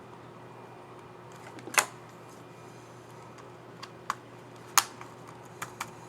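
Sharp plastic clicks of a Dell Inspiron 7573 laptop keycap being pressed onto its scissor mechanism. Two loud snaps come about three seconds apart, with several lighter clicks around them.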